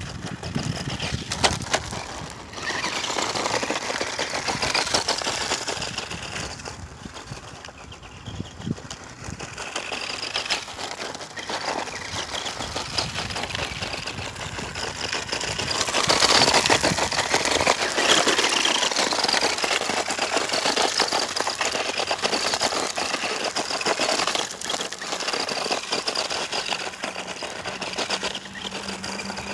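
Electric motor of a vintage Kyosho Raider 2WD radio-controlled buggy whining as it drives and speeds up and slows, its tyres crunching over loose gravel. Loudest a little past halfway through.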